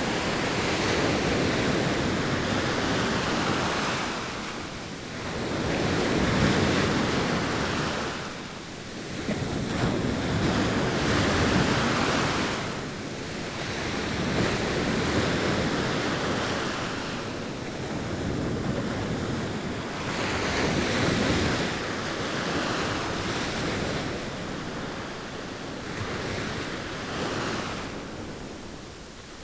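Sea waves breaking and washing up the shore, rising and falling in slow surges every few seconds.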